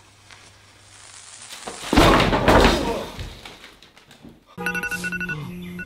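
A lit fuse fizzing, rising in hiss, then a loud explosion about two seconds in that dies away over about a second. Near the end a short electronic beeping tune starts.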